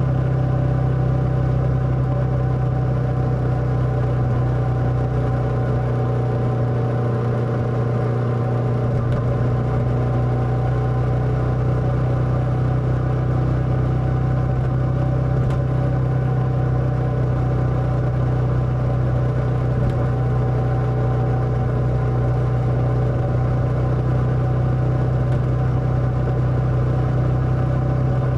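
Motorcycle engine running at a steady speed: a constant drone with no change in revs.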